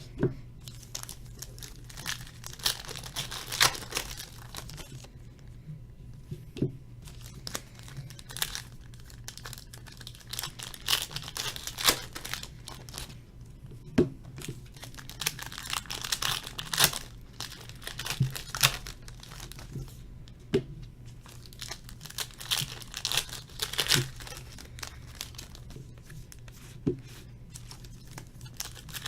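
Plastic wrapping of trading-card boxes and packs being torn open and crinkled, in irregular short bursts with a few sharp clicks, over a low steady hum.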